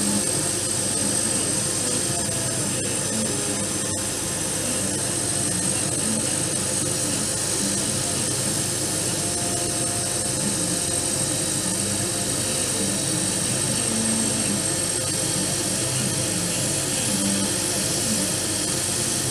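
50W Chinese CO2 laser cutter running as it cuts a printed figure out of a wooden board: a steady mechanical whirr with a thin high whine.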